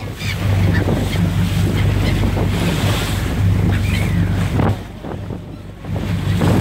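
Wind buffeting the microphone and water rushing past a moving boat, over the steady low hum of the boat's engine. The wind noise drops briefly about five seconds in.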